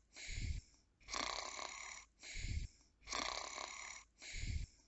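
Snoring: three slow cycles about two seconds apart, each a long breathy hiss followed by a short low snort.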